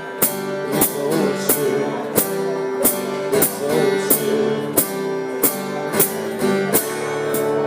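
Acoustic guitar strumming the closing chords of a song, a stroke about every half second, ending on a final chord left ringing.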